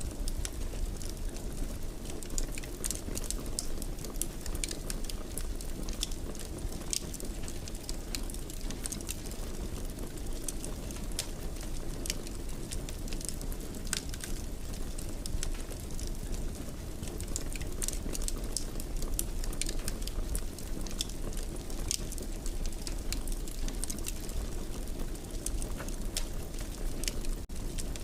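Wood fire burning in a fireplace: a steady low rumble with frequent, irregular crackles and sharp pops.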